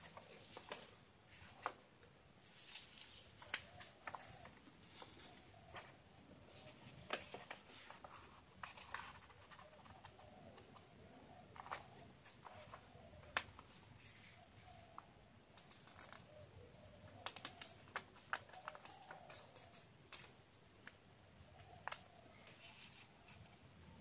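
A sheet of origami paper rustling and crackling as it is handled and folded, with many short, sharp crinkles and clicks from the paper being lifted, bent and creased, and brief rustles as hands slide over it.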